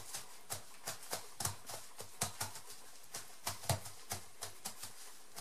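Hands patting down a plastic sheet laid over wet, soapy wool layers, in soft quick pats about four a second, pressing the water through the fibres to wet out the wool for felting.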